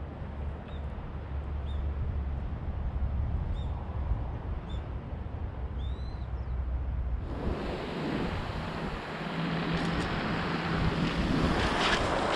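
A steady low hum with a few short bird chirps, then about seven seconds in an abrupt change to a louder, even rushing noise of wind or surf.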